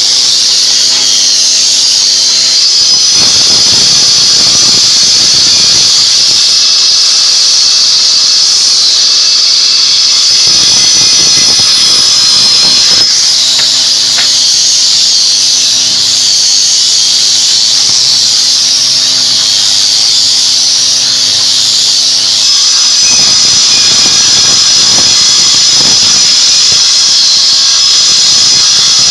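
A woodworking power tool running with a loud, high-pitched whine, alternating between a steady hum and stretches of rougher noise several times.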